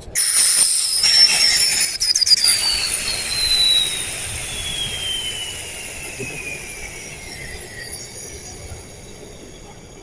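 Refrigerant gas venting from a refrigerator's sealed system through the opened pin valve. A loud hiss starts suddenly, with a whistle that slides steadily down in pitch over about seven seconds, and both fade as the pressure bleeds off.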